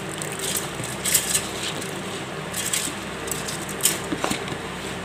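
Wet soaked rice and urad dal being scraped by hand out of a plastic bowl into a steel mixer jar: a few short, soft crunching and scraping sounds of the grains sliding and dropping into the jar.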